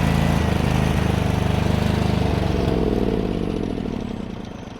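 John Deere GT245's Kawasaki FH601V V-twin engine running, then slowing and dying away over the last couple of seconds, its pitch falling as it stops. It is running rich and blowing black smoke, which the owner suspects comes from overheating.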